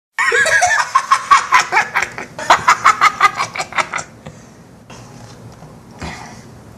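High-pitched cackling: a quick run of pitched yelps, about four or five a second, for about four seconds. It then drops to a faint background.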